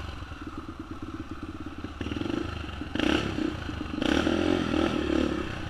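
Yamaha TT-R125's single-cylinder four-stroke engine, fitted with an FMF exhaust, running as the bike is ridden over a rough trail. The throttle comes on harder about two seconds in and again at three and four seconds, with some clattering from the bike over the ground.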